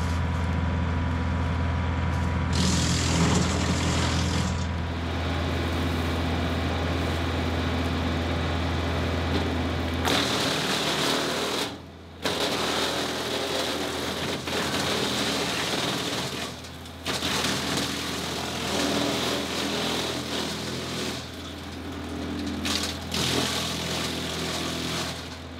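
A John Deere 2038R compact tractor drives a Frontier WC1105 three-point PTO wood chipper, which runs steadily as pine branches are fed in and chipped. The sound breaks off briefly a couple of times in the middle.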